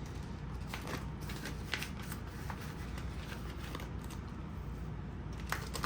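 Paper banknotes being handled: light rustling and soft flicks as bills are counted and moved between cash envelopes.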